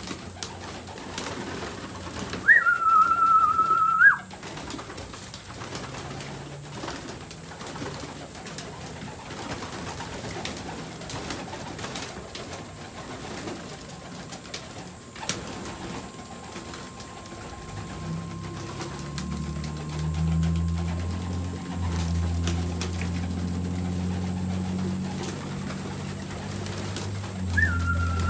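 A loft of young homing pigeons cooing, with short wing flaps and scuffs as they flutter about. A loud high whistled note, held for about a second and a half, sounds once early on and again at the very end.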